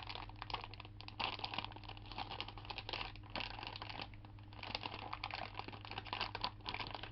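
Plastic packaging crinkling and rustling with quick irregular clicks as a make-your-own lollipop candy kit is opened and its parts handled.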